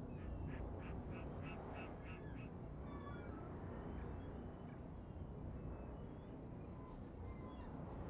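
A sea eagle calling a quick series of about seven short notes, roughly three a second, followed by a few fainter scattered bird calls over a steady low background noise.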